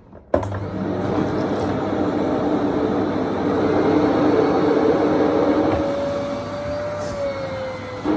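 Small vacuum cleaner switched on at its highest suction setting about a third of a second in, then running loud and steady with a whine that drops a little in pitch near the end.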